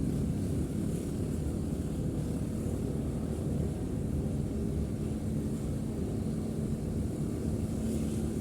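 Steady low rumble of a car driving along a street, with no sudden sounds.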